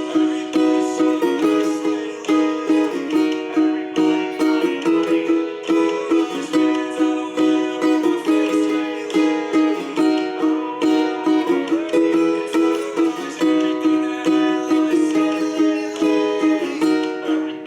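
Ukulele strummed in a steady rhythm, playing a four-chord progression of G, Em, Bm and C.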